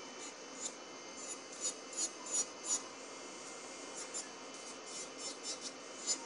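Electric nail drill with a Perfect Beauty Strong Bit grinding gel polish off a fingernail: a faint steady whine with short scratchy rasping strokes, about two to three a second, as the bit is passed over the nail.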